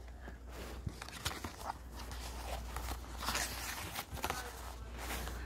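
Stiff greeting card being handled and opened: irregular soft paper rustles with a few light taps.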